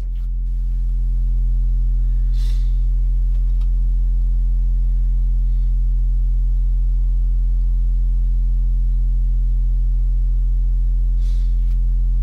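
A car-audio subwoofer in a single 10-inch box plays a steady sine test tone of about 42 Hz, the box's peak frequency, at low volume. The tone swells up over about the first second and then holds steady, with overtones above the fundamental. It is the test signal for measuring the subwoofer's impedance rise with a multimeter and a clamp meter.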